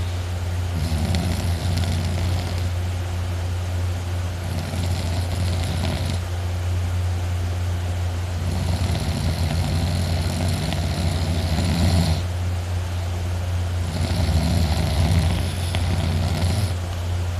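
A person snoring loudly while asleep sitting up in a chair: four long, rasping snoring breaths a few seconds apart, over a steady low hum.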